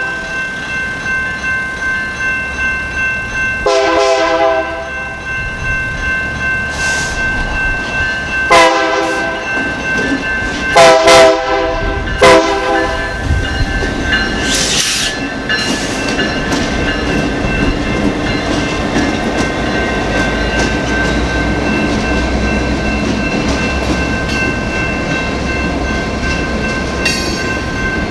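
A Union Pacific freight train led by EMD SD59MX locomotives sounds its horn in four blasts for the grade crossing during the first half, over the steady ringing of the crossing's General Signals Type 2 electronic bell. About halfway through the locomotives pass with a loud rumble, followed by boxcars rolling across the crossing with wheel clatter.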